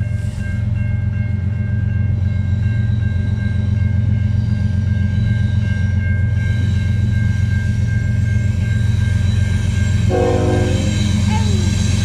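Railroad crossing's mechanical bell ringing steadily over a low rumble of wind on the microphone, while an approaching CN diesel freight train grows louder toward the end. A short horn sounds about ten seconds in.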